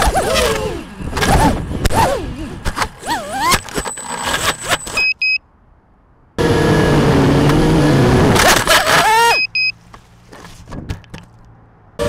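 FPV quadcopter's electric motors whining, their pitch rising and falling as it thrashes through tree branches, then cutting out as it comes down in the grass, followed by two short beeps. The motors then hum steadily and spin up with a rising whine that cuts off suddenly, followed by two more short beeps.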